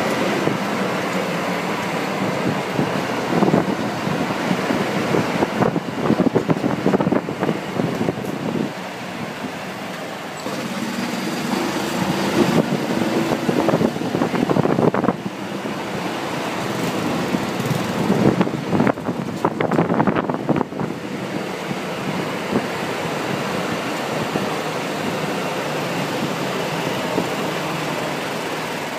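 Golf carts driving along a street: a steady motor hum with bursts of rattling and clatter several times over.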